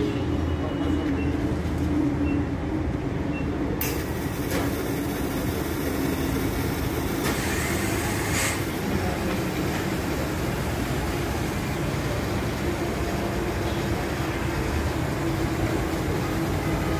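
CNG filling-station machinery running during a car's fill: a steady mechanical drone with a low hum. A brighter hiss joins about four seconds in.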